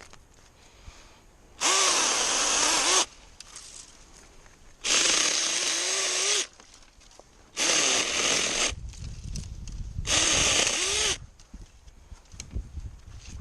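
Drill Pro cordless mini chainsaw running in four short bursts of about a second each, an electric motor whine whose pitch wavers within each burst.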